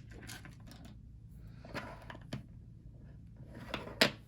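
Plastic LEGO pieces clicking and tapping as they are handled and pressed together: a few sharp separate clicks, the loudest near the end.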